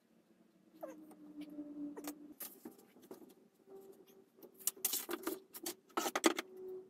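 Scattered clicks and knocks from a person shifting their weight on a wooden workbench while leaning back against a fluted plastic (Coroplast) kayak panel. The knocks come most thickly in the second half, over a faint steady whine.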